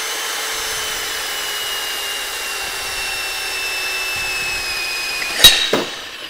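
Handheld electric drill running under load as a split-point twist drill bit cuts into a metal block with cutting oil, a steady motor whine that sinks slightly in pitch. About five and a half seconds in, a sharp knock and a smaller one follow as the camera falls over, and the drill sound drops away.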